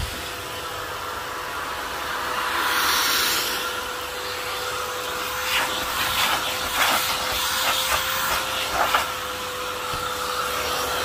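Filter Queen Majestic canister vacuum running with a steady whine and rush of air through its hose. The airflow swells briefly about three seconds in, and from about halfway on there are light knocks and scrapes as the nozzle works over a leather couch.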